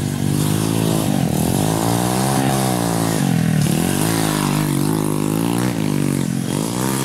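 Trail motorcycle engine revving hard as the bike rides up a dirt track and passes close by, its pitch climbing and dropping three or four times as the throttle opens and closes.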